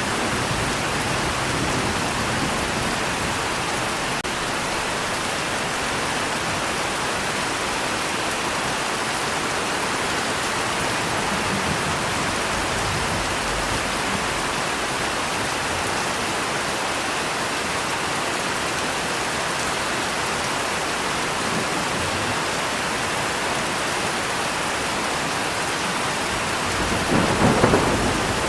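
Steady heavy rain falling, with a roll of thunder swelling up near the end.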